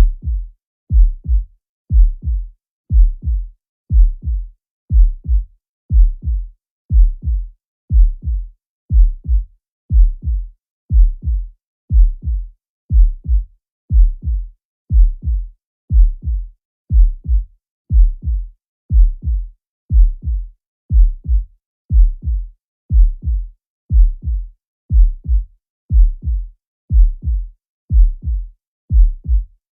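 Normal heart sounds: a steady lub-dub, each louder first sound followed closely by a softer second one, at about one beat a second.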